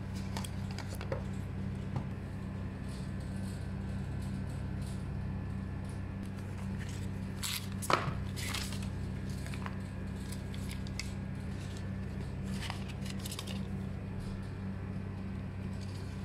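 Cardboard packaging and paper inserts being handled: rustling, sliding and light taps as a small box is opened and its contents pulled out, loudest about eight seconds in. A steady low hum runs underneath.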